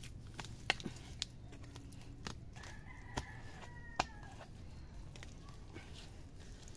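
A rooster crowing faintly, one drawn-out call from a little before halfway through to about two-thirds through, with scattered sharp clicks and knocks.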